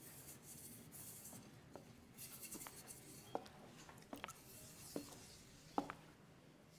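Dishes being washed by hand at a sink: faint rubbing and scrubbing on crockery, with a series of light clinks as plates and bowls touch.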